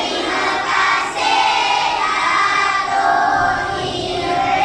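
A class of schoolchildren singing together in unison, holding long notes.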